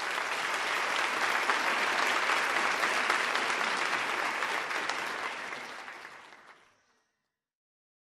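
Audience applauding, the clapping fading away about six and a half seconds in.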